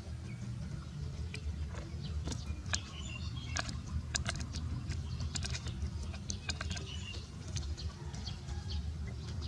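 A puppy gnawing a dry wooden stick: irregular crunching clicks and snaps, a few in quick clusters, over a steady low rumble.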